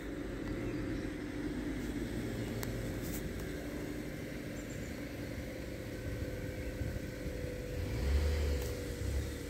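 Steady low engine hum with a faint steady tone over it, growing a little louder about eight seconds in.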